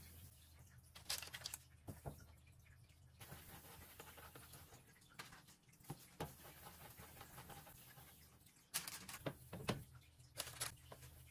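Faint rustles and soft taps of hands handling bread dough balls, a cloth towel and a paper-lined baking tray, over a low steady hum. The handling sounds come in short clusters, the loudest a little before the end.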